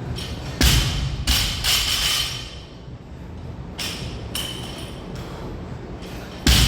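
Heavy thuds of gym equipment hitting the floor during a workout: a strong impact just under a second in and another near the end, with shorter knocks and noisy whooshes in between.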